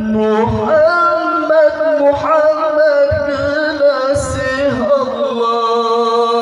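A male qari singing a shalawat in a melismatic Arabic style into a microphone, drawing out long held notes with ornamented turns and no clear words, sliding down in pitch about five seconds in.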